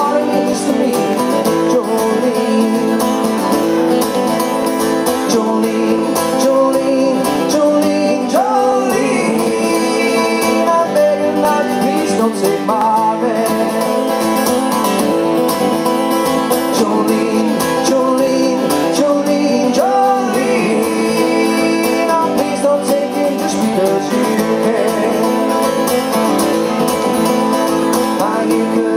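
Two acoustic guitars strummed with male singing, a live acoustic duo amplified through stage microphones. The music runs steadily without a break.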